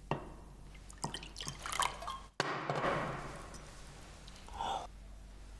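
Wine being poured from a bottle into a wine glass, with a few short knocks.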